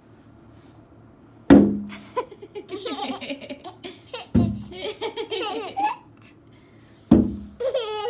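Snowballs hitting a window pane with a heavy thud, three times about three seconds apart. After each of the first two thuds a one-year-old boy laughs and squeals with excitement, and he starts again just after the third.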